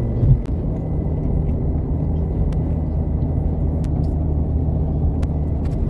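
Steady low rumble of a car driving along the road, heard from inside the cabin.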